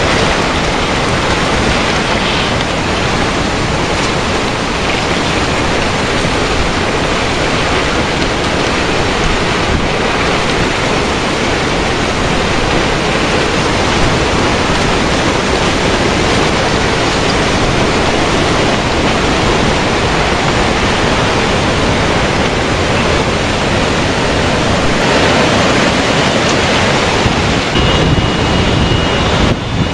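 Tsunami floodwater rushing through a wrecked town, a loud steady roar of churning water carrying debris.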